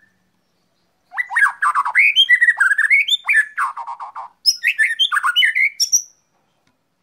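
White-rumped shama singing a rapid, varied song of whistled and harsher notes, in two runs: the first starts about a second in and lasts about three seconds, and after a brief break a shorter second run follows.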